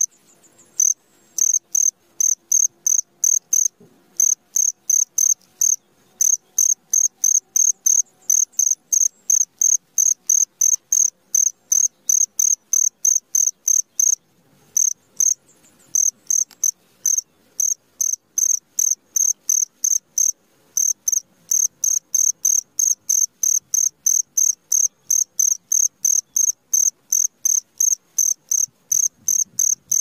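A cricket chirping in a steady rhythm: short high-pitched chirps about three a second, with a few brief pauses in the sequence.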